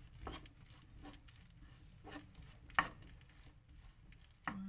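Wooden spatula stirring and scraping sweet potato fries and vegetables around a wok, with soft irregular knocks and one sharper knock about three seconds in.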